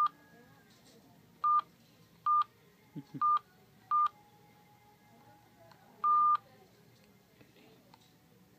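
RadioShack CT-1055 cellular phone's keypad beeping as its buttons are pressed: a run of short beeps all at one pitch, then a longer beep about six seconds in. Two soft knocks sound around three seconds in.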